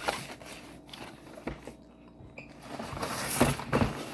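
Rustling and light knocks of fishing tackle and packages being handled and put away, swelling into a louder stretch of rustling about three seconds in.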